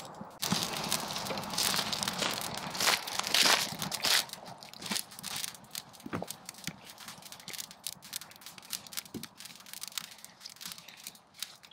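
Campfire crackling and snapping as it catches. The pops come thick and loud for the first few seconds, then thin out to scattered snaps.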